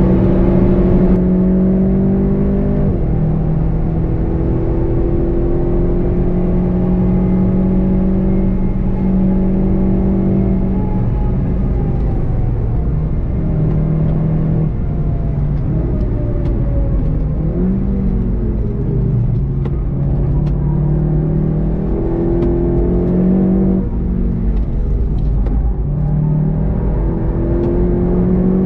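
A 2019 VW Golf 7.5 GTI TCR's turbocharged 2.0-litre four-cylinder, heard from inside the cabin while it is driven hard, its pitch holding steady in stretches and stepping at gear changes. In the middle section the engine note swoops down and back up as the car brakes and shifts down, over a constant low road and tyre rumble.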